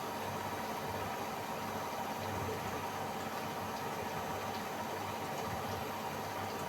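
Samsung AddWash WW70K5410WW front-loading washing machine running steadily through its spin and drain cycle: an even hum with a steady whine that holds without change.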